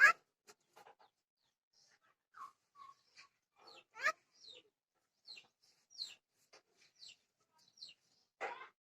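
Myna bird making a string of short whistles and chirps, with louder, harsh calls at the start, about four seconds in, and near the end.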